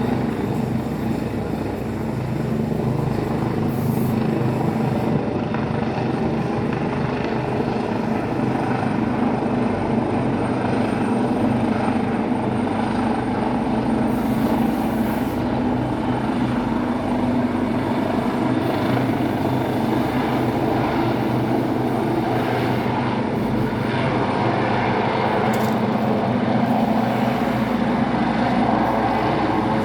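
Helicopter running steadily, its rotor and engine noise holding even with a constant low hum.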